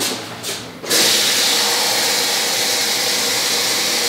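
Kitchen sink tap turned on about a second in and running steadily, water flowing into a measuring cup.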